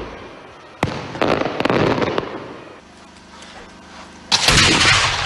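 Fireworks going off: a sharp bang about a second in, followed by crackling that dies away. About four seconds in, a sudden loud burst of dense crackling begins.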